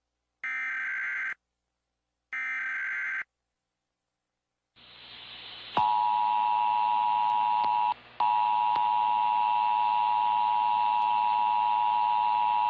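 Emergency Alert System test broadcast. First come the warbling digital header bursts, each about a second long with a second's gap. Then hiss rises, and about six seconds in the loud, steady two-tone EAS attention signal begins. It breaks off for a moment around eight seconds in.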